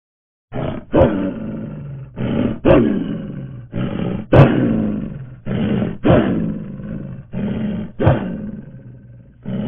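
A large animal gives loud, rough roaring grunts in pairs about half a second apart, each pair repeating about every one and a half seconds.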